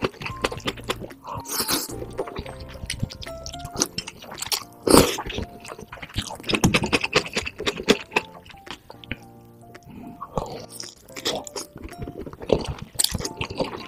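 A person slurping and chewing spicy instant ramen noodles, with wet mouth clicks and a few loud slurps, the loudest about five seconds in, over background music.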